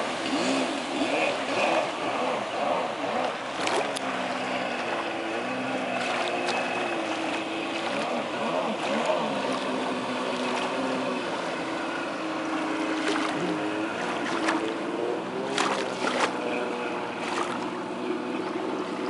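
Kawasaki X2 two-stroke personal watercraft engine running out on the water, its pitch rising and falling as the rider throttles through turns.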